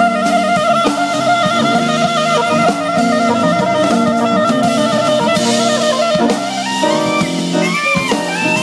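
Live jazz band playing: a saxophone holds one long wavering note for about six seconds over a drum kit, then moves through shorter notes near the end.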